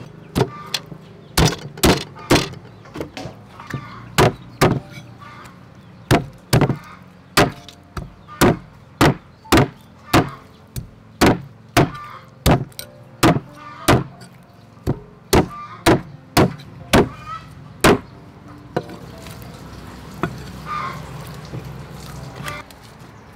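Cleaver chopping raw chicken on a thick round wooden chopping block: a long run of sharp chops, one or two a second, that stops a few seconds before the end.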